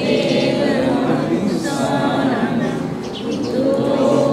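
A group of voices chanting together in unison, a Buddhist devotional chant, many voices overlapping on one sustained melodic line.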